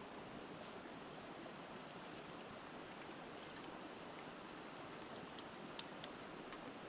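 Wood fire crackling with scattered small pops, two sharper ones near the end, over the steady rush of a river.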